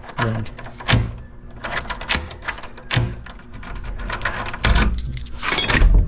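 Metallic clicking and rattling from a door's knob lockset and newly fitted deadbolt being worked by hand, with a couple of dull knocks near the end.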